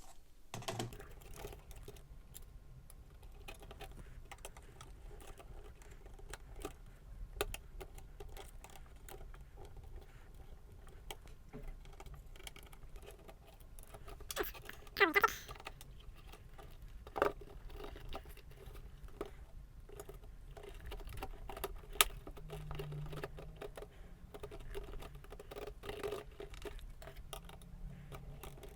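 Light plastic clicks, taps and rustles of a netbook's keyboard and case being handled as its flex cable is seated, with a louder scrape about halfway through and a sharp click a little later.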